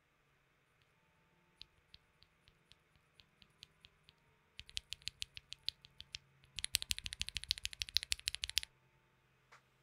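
A lubed and filmed Gateron Black Ink linear switch with a keycap on, pressed by hand repeatedly: slow separate presses at first, quicker ones from about halfway, then a rapid run of presses that stops about a second before the end, with one last press after.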